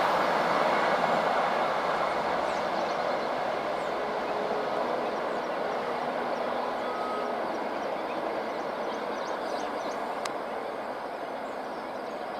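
Express passenger train running along the track, its rolling noise fading steadily as the train moves away.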